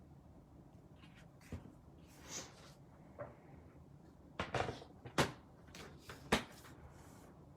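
Craft supplies handled on a work table: a short swish about two seconds in, then a string of sharp clicks and knocks, the loudest three in the second half.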